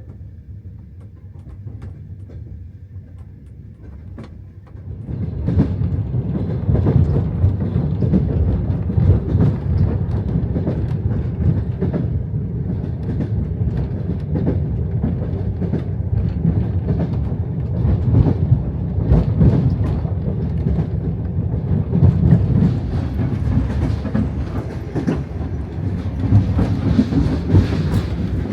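Soviet-era sleeper train running on the rails: a steady low rumble with clicking wheel clatter, stepping up much louder about five seconds in.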